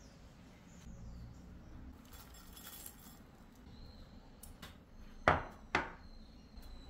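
Metal kitchen tongs clicking and clinking against a ceramic salad bowl as toppings are laid on, with two sharp clicks about five seconds in. A brief rustle comes a couple of seconds in.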